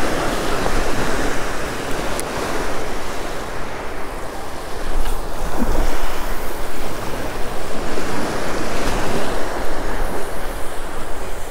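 Small surf breaking and washing up on a sandy beach in a steady rush, with wind buffeting the microphone as a low rumble.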